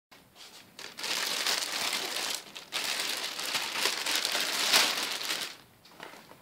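Thin clear plastic bag crinkling as hands pull it open and off a mask. There is a short break about two and a half seconds in, and the sound dies down shortly before the end.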